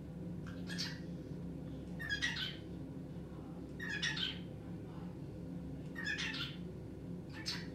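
Cockatiel calling: short, high chirping calls about every two seconds, five in all, over a steady low hum.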